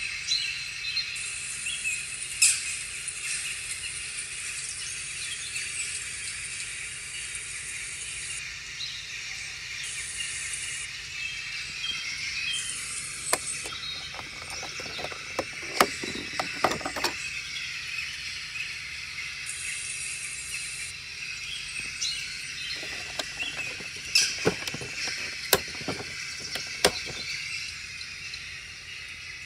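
Light clicks and knocks of plastic being handled, in two clusters about halfway through and near the end, over a steady high hiss.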